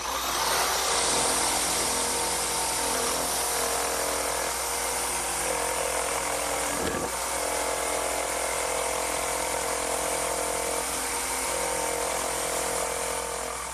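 Electric jigsaw running and cutting through a wooden board, its blade sawing out the waste between two drilled holes to form a mortise. The saw starts at once, runs steadily with a brief dip about seven seconds in, and stops near the end.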